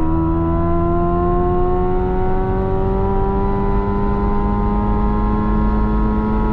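Hyundai Ioniq 5 N's synthesized engine sound, heard inside the cabin under full-power acceleration with N Grin Boost engaged. Several tones rise slowly and steadily in pitch, with no gear-shift breaks, over road and wind noise.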